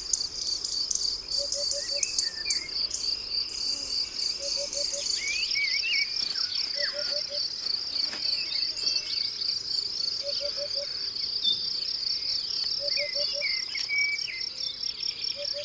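Crickets chirping in a steady, high, pulsing trill, with birds singing now and then. A low call of four quick notes repeats every few seconds.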